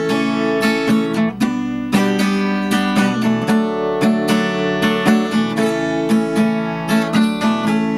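Acoustic guitar strumming chords steadily in an instrumental break between verses of a country song, with no singing.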